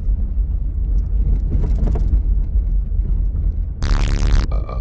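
Steady low rumble of a car's engine and road noise heard inside the cabin, with a loud, brief yell from the driver about four seconds in.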